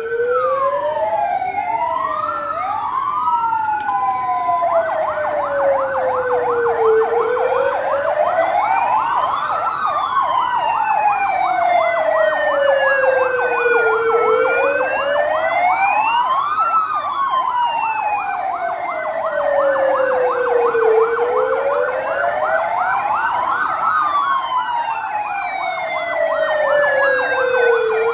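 Electronic sirens sounding together: a slow wail rising and falling about every seven seconds, joined about four to five seconds in by a fast warbling yelp that continues alongside it.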